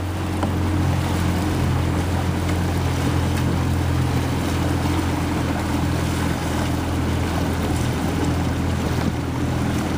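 Motorboat engine running steadily at low speed, a constant low hum, with water and wind noise over it.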